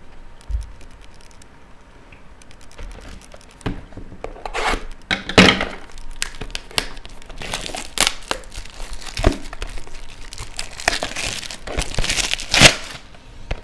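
Plastic shrink-wrap being torn and crumpled off a sealed trading-card box, in irregular crinkling rips that are loudest around the middle and near the end.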